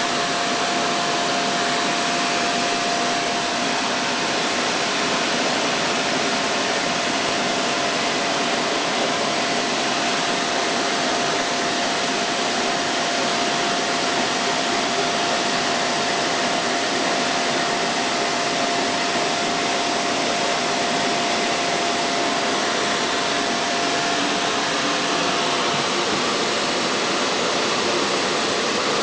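Electric hair dryer running steadily, blowing air with a steady whine from its motor that fades out a few seconds before the end.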